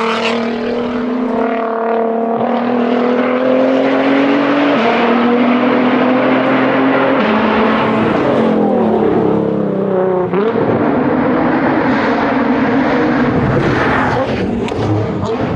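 Nissan R35 GT-R's twin-turbo V6 under hard acceleration on a rally stage, revs climbing and dropping back at each upshift, then falling and rising again through a downshift and corner exit around eight to ten seconds in.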